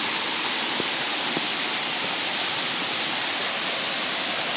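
Small river rushing steadily over and around stepping stones.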